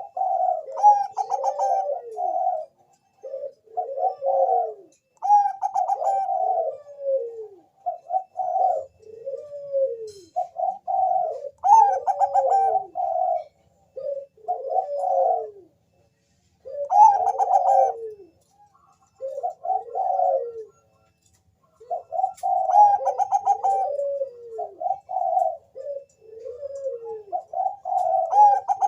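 Zebra dove (perkutut bangkok, a Thai song line) cooing: song phrases of quick staccato coos, each ending in a few falling notes, repeated over and over with short pauses between.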